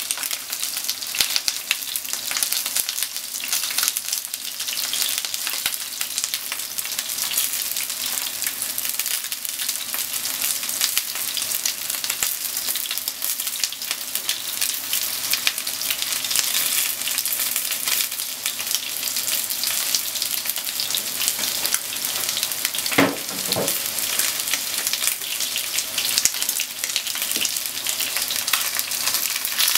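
Flour-coated chicken pieces shallow-frying in oil in a nonstick frying pan: a steady sizzle thick with fine crackling, as wooden chopsticks turn the pieces now and then. A brief louder knock sounds about three-quarters of the way through.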